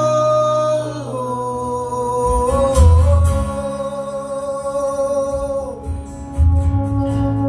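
Live acoustic folk song: strummed acoustic guitar under long held melody notes that slide from one pitch to the next, with a couple of low thumps on the beat.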